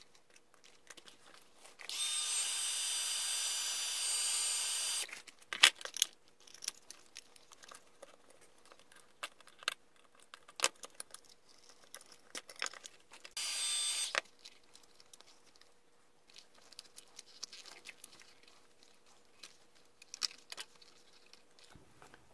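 A small power tool runs twice, first for about three seconds a couple of seconds in, then briefly past halfway, with a high whine over its noise. Between the runs come scattered clicks and knocks of small parts and wires being handled, the sharpest just after the first run.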